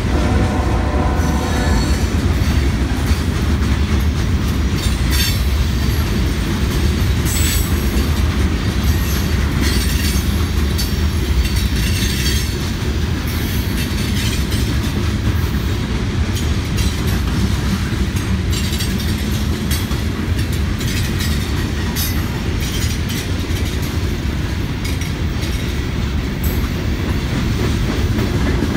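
Freight cars of a passing Norfolk Southern train rolling by at close range: a steady low rumble of steel wheels on rail, with scattered brief high squeals and clanks from the wheels and couplers.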